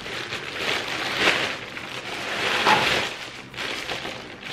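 Clear plastic bag crinkling and rustling in several bursts as a monofin is handled and worked out of it.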